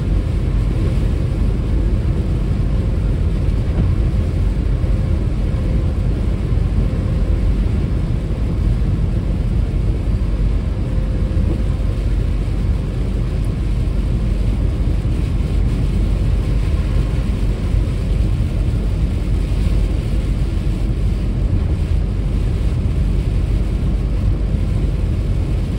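Steady road noise inside a car cruising on a rain-soaked expressway: a low, even rumble of tyres and wind with a hiss of wet spray.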